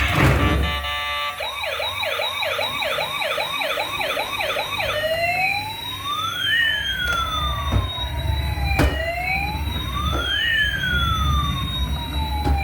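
Electronic emergency-vehicle siren: a fast yelp of quick rising sweeps, about three a second, then, about five seconds in, a slower wail that rises and falls roughly every four seconds.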